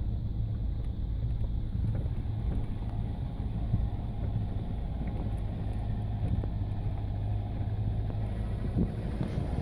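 Steady low rumble of a 4x4 jeep driving, engine and tyre noise heard together with a few faint knocks.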